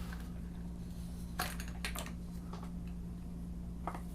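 Light plastic clicks and taps as a plastic miniatures sprue is handled: a quick cluster about a second and a half in and two more near the end, over a steady low hum.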